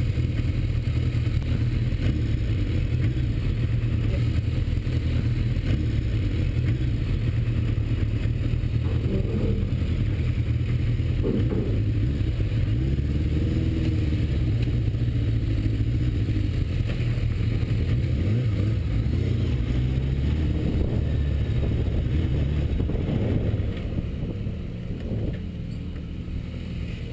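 Motorcycle engine running at low speed, a steady low note that turns quieter a few seconds before the end as the bike comes to a stop.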